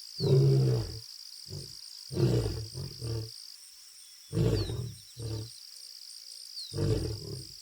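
Lion roaring at a lioness in a series of about five short, loud calls with gaps between them, while a steady high whine runs behind.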